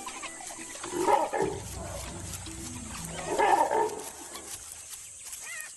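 African wild dog pack vocalizing in two short, rough outbursts, about a second in and again around three and a half seconds, with a brief high twitter near the end.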